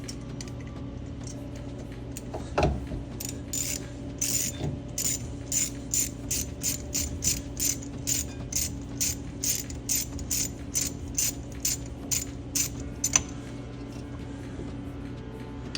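Hand ratchet with a 5 mm Allen bit socket clicking steadily, about three clicks a second, as it backs out a bolt holding the electric parking brake motor to the rear caliper. A single knock comes just before the clicking starts, and a steady low hum runs underneath.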